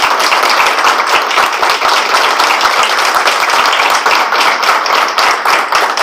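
Audience applauding: a loud, dense patter of many hands clapping at the close of a talk.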